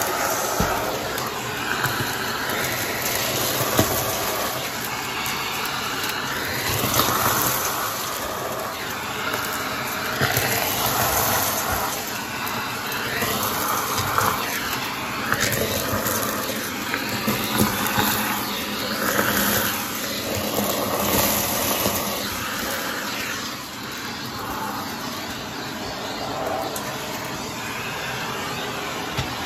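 Vacuum cleaner running, its hose and nozzle tool drawn over carpeted stairs: a steady rush of air whose tone keeps rising and falling as the nozzle works the carpet, with scattered clicks of beads and sequins being sucked up the hose.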